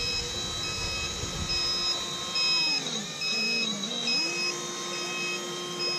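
Small electric motors of an RC dump truck whining, their pitch rising and falling as they run up and slow down, while high electronic beeps repeat about once a second.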